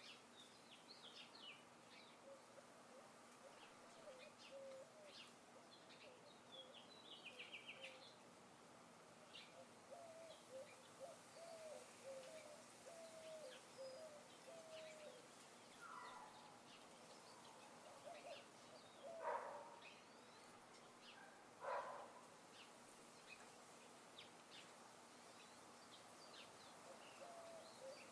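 Several small birds chirping and calling at a distance over a faint steady hiss: scattered short high chirps, a quick rattling trill, a string of lower short notes, and two louder calls near the two-thirds mark.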